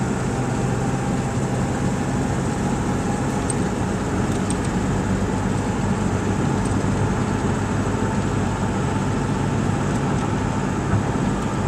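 Ford 7.3-litre Power Stroke V8 turbo-diesel running steadily under way at highway speed on a diesel and CNG mix, an even engine drone with road noise, heard from inside the cab.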